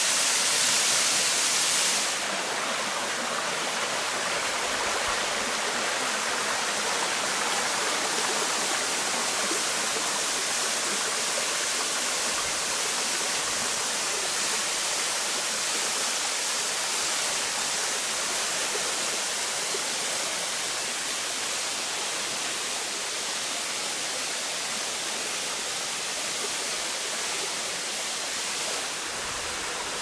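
Waterfall splashing into a rock pool: a steady rush of falling water, a little quieter from about two seconds in and again near the end.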